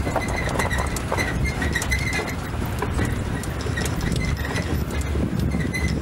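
A safari vehicle driving over a rough dirt forest track: a steady low engine and road rumble, with the body rattling and knocking.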